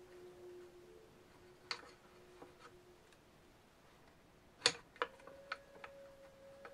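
Light clicks and taps of a wooden dowel and wire armature being handled against a wooden base, with one sharper knock about two thirds of the way in and a few quicker ticks after it. A faint steady hum begins just after the knock.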